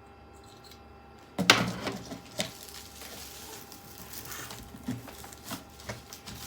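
Handling noise: a sudden loud knock and rustle about a second and a half in, another click shortly after, then quieter rustling with scattered small clicks, as a PC case and its packaging are handled.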